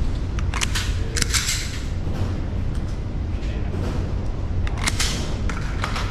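Several scattered gunshots on a shooting range, the loudest about half a second, just over a second and nearly five seconds in, over a steady low rumble.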